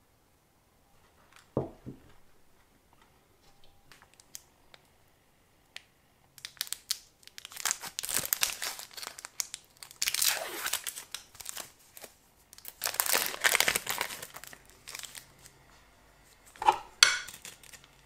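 A plastic candy-bar wrapper crinkling and tearing open in several bouts, with a short knock about one and a half seconds in and a last sharp crackle near the end.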